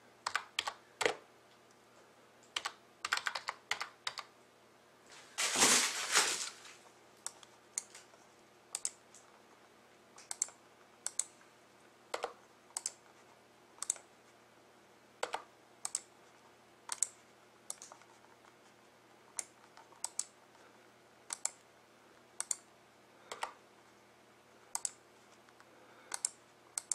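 Computer keyboard being typed on: a few quick runs of key clicks, a short rustle about five seconds in, then single keystrokes spaced about a second apart, the repeated copy-and-paste strokes of entering the same team names over and over.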